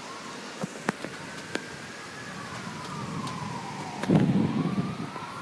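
Fire truck siren wailing, sliding slowly down in pitch and then rising again, over steady rain hiss. A few sharp ticks come early, and a vehicle passes on the wet road about four seconds in.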